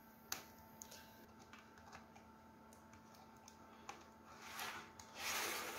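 Faint small clicks and taps of hands working on an open laptop's 2.5-inch hard drive bay, then a louder scraping rustle lasting about a second near the end. A faint steady hum runs underneath.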